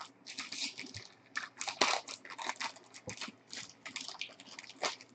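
Trading cards and their plastic packaging being handled: irregular crinkling and rustling scrapes, several a second.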